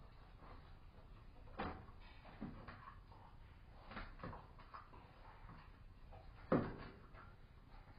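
A few dull knocks and bumps, the loudest about six and a half seconds in.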